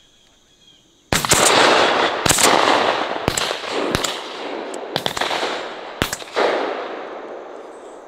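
A volley of shotgun shots at doves from several guns: about seven sharp blasts, irregularly spaced, starting about a second in and ending about six seconds in. Each shot rings out and echoes, so the reports run together into a rolling rumble that slowly dies away.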